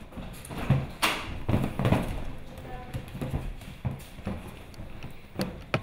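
Maltese puppies tussling over a plastic flower lei: scattered taps, clicks and rustles of the lei and their paws, mixed with small puppy noises.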